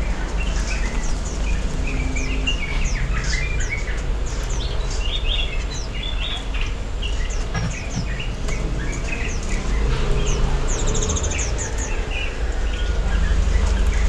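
Many small birds chirping and calling at once, a busy mix of quick high chirps and short whistled phrases, over a steady low rumble.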